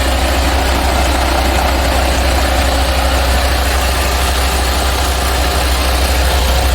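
MaxxForce 13 diesel engine of an International semi truck idling steadily, a deep even rumble.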